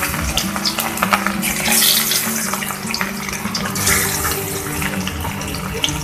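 Pieces of rohu fish frying in hot oil in a kadai: a loud, steady sizzle with frequent crackles and spits.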